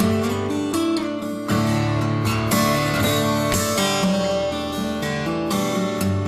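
Music led by strummed acoustic guitar, with chords changing every second or so.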